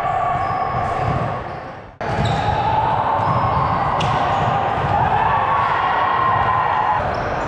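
Indoor volleyball gym ambience: reverberant hall noise with background voices and ball impacts, including one sharp smack about four seconds in. About two seconds in the sound fades down and cuts off, then resumes abruptly, an edit between sets.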